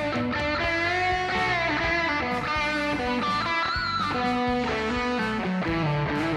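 Aria Pro II Magna series electric guitar playing an improvised lead line, with sustained notes and string bends that slide the pitch up and back.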